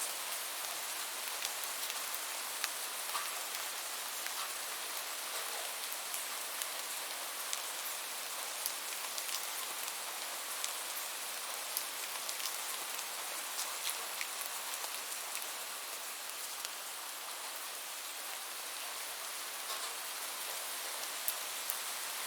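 Steady rain falling, a continuous hiss with many small scattered drop ticks.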